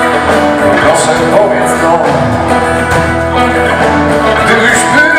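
Blues band playing live, with an electric guitar to the fore. The music is loud and continuous.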